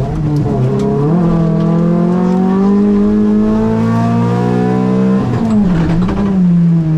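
Renault Clio rally car's engine heard from inside the cabin, pulling hard under full throttle with its pitch climbing steadily for about four seconds, then a gear change about five seconds in drops the revs before it pulls on lower.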